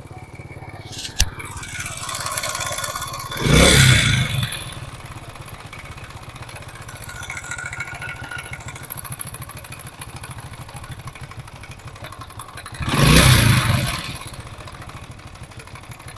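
Motorcycle engine idling with a noise called very dangerous, blipped twice, about 3.5 seconds in and again about 13 seconds in, with one sharp click about a second in. The noise comes from the timing chain, which the mechanic puts down to a soft tensioner spring.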